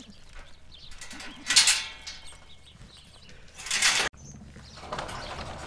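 Goats bleating, two short harsh calls about two seconds apart.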